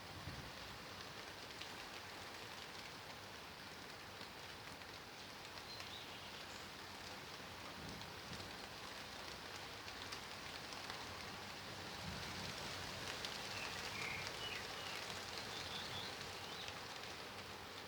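Steady rain falling and pattering on surfaces, with individual drops ticking through the hiss; it swells a little in the second half. A few short, high chirps sound about two-thirds of the way through.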